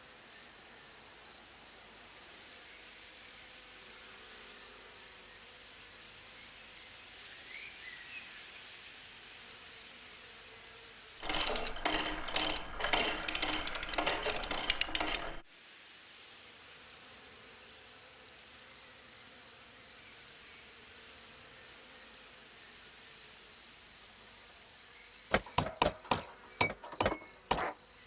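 A steady, rapidly pulsing high insect trill like a cricket's chirring. About eleven seconds in it is broken by some four seconds of loud, rapid clicking and clattering, then resumes. Sharp clicks come again near the end.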